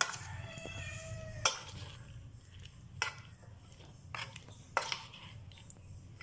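Metal spoon stirring and turning cauliflower florets coated in wet masala paste in a stainless steel bowl, with a soft squelching of the paste and sharp clinks of the spoon against the bowl about once a second.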